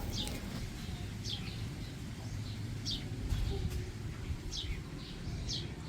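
Faint bird chirps: short, high, falling notes about once a second, over a steady low room rumble.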